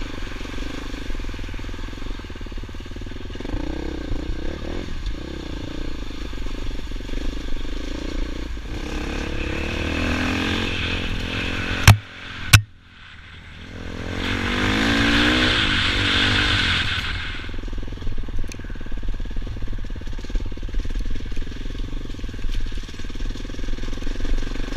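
Dirt bike engine running under way on a trail, the revs rising and easing as the rider works the throttle. About halfway through come two sharp knocks and a brief drop in the engine sound, then the engine revs up again.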